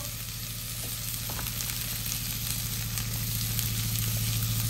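Saucepan of cream sauce simmering on the stovetop with a soft, steady sizzling hiss. Under it runs a steady low hum, the loudest thing present.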